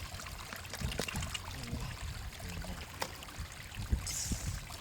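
Shallow water sloshing and trickling as hands work through it, with scattered knocks and small splashes and a brief splash about four seconds in.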